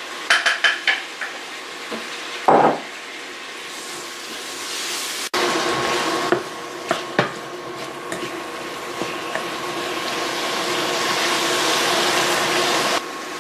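A wooden spoon knocking and scraping against a stainless steel pan as chopped tomatoes, onion and whole spices are stirred, with several quick knocks near the start. The tomatoes then sizzle steadily in the hot oil, the sizzle growing slowly louder, with a faint steady whine underneath.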